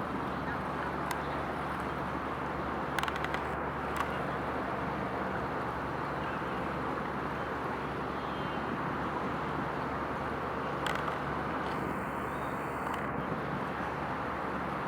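Steady outdoor background rumble and hiss with a faint low hum, broken by a few short faint clicks.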